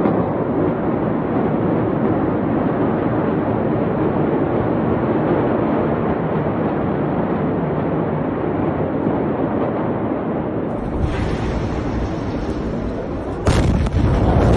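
Loud, steady rushing roar, joined by a deep rumble about 11 seconds in, then a sudden louder, deep blast near the end: the Beirut port explosion picked up on amateur phone footage.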